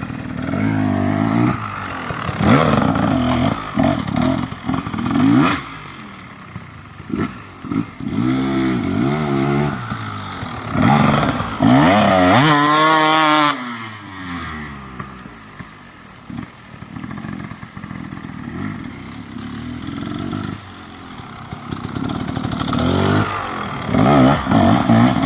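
Two-stroke dirt bike engines revving and accelerating through the gears, the pitch climbing and dropping again and again. The loudest run comes about halfway through, a high climbing whine that then falls away as the bike passes.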